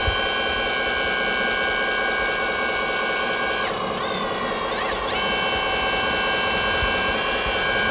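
Radio-controlled hydraulic excavator working, a steady high whine from its motors and hydraulic pump. Midway the pitch drops, then climbs back over about a second and a half.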